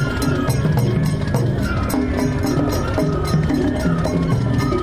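Traditional Japanese festival music: a high melody over low percussion, with a quick, steady ticking beat about four to five times a second.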